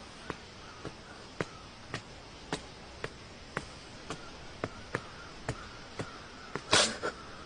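Sharp clicks or taps repeated evenly, about two a second, over a faint hiss, with one louder, rougher burst near the end.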